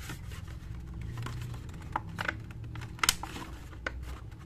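Stiff plastic packaging clicking and scraping as a mini heat press is worked out of its tight-fitting insert: a handful of sharp clicks, the loudest about three seconds in, over a low steady hum.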